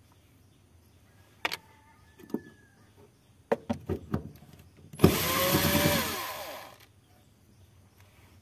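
Cordless drill-driver runs for about two seconds, starting about five seconds in, unscrewing a small hose-clamp screw on the fuel pump's hose, and winds down as it stops. Before it, a few sharp clicks and taps as the tool is set on the screw.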